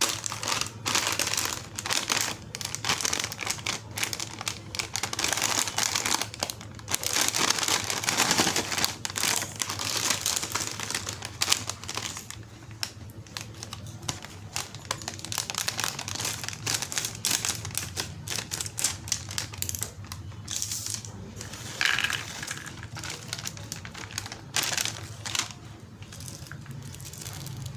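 Plastic snack packaging crinkling and rustling as it is handled and opened, in quick irregular crackles. It is busiest in the first half and grows quieter and sparser later on.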